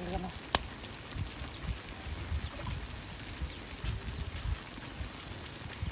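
Pork head pieces sizzling in a thick, reduced dark sauce in a wok: a steady frying hiss with scattered small pops and one sharper crackle about half a second in, plus a few dull low thumps.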